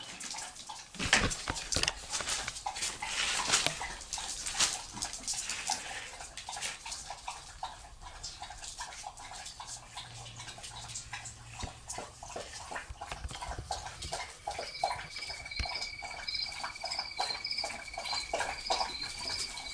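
Four-week-old Brittany puppies at play: small puppy vocal sounds over constant scrabbling and scratching clicks. From about three quarters of the way in, a steady high tone with regular chirps above it joins.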